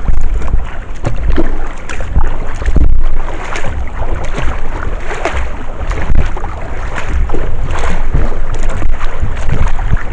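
Kayak paddle strokes splashing and dripping in the water, with wind buffeting the microphone in a heavy low rumble.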